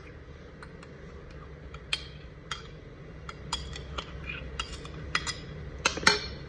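A spoon clinking and scraping against a bowl as cream is spooned into cooled custard: irregular light clicks, with a cluster of louder knocks about six seconds in, over a faint steady low hum.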